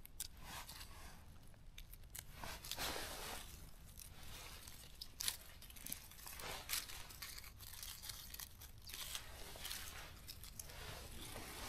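Faint snipping and rustling as wild mushrooms are cut off with scissors and handled among forest leaf litter, in scattered short bursts.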